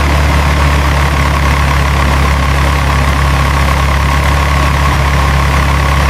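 A steady, low engine drone of a miniature truck idling, with a faint high whine above it.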